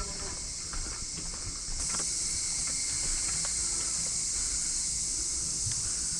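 A steady, high-pitched drone of insects, most likely cicadas, that grows louder about two seconds in. It has faint rustles and clicks of movement beneath it.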